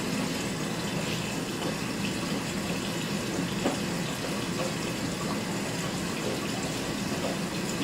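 Miele Softtronic W3825 washing machine mid-cycle with a steady rush of water running through it, between wash stages rather than spinning.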